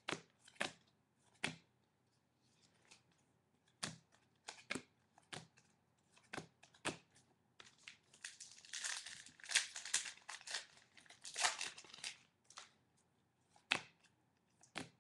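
Hands flicking through a stack of trading cards, with a run of short card snaps and clicks. About eight and a half seconds in comes a stretch of crinkling and tearing of a foil pack wrapper, lasting until about twelve seconds in.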